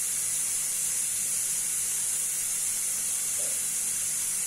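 Pressure cooker hissing steadily with steam escaping past its whistle weight, cooling off the heat after its whistles.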